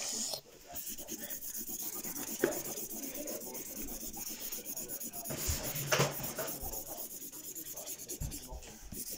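Felt-tip marker scribbling on paper, colouring in with quick back-and-forth strokes, with a couple of light knocks.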